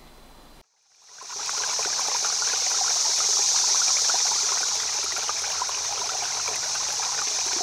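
Running water like a babbling stream, fading in about a second in and then running steadily: an even hiss with many small trickling crackles.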